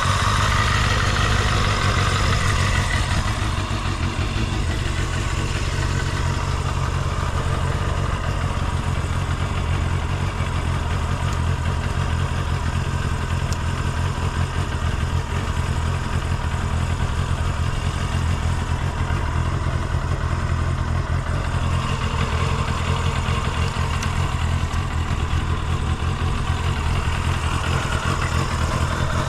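Kawasaki Balius II's 250 cc inline-four engine idling steadily while warming up after a cold start, running smoothly with no abnormal noise.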